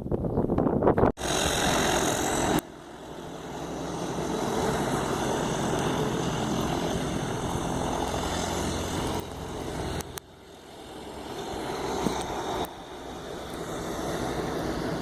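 Twin turboprop engines of an Embraer EMB-120 Brasília (Pratt & Whitney Canada PW118) running steadily. The level drops and jumps abruptly several times.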